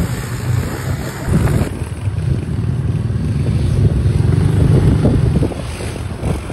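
Small quad bike engines running with a low, steady exhaust note as several riders move around; the sound drops a little near the end.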